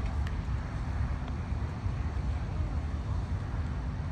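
Wind buffeting the microphone: a steady low rumble, with a couple of faint clicks in the first second or so.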